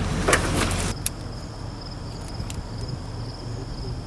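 A vehicle engine idling with a few sharp metal clanks as a riding lawnmower is pushed back into place on a flat trailer deck. About a second in the engine sound drops away, leaving a quieter stretch with a faint steady high tone and an occasional click.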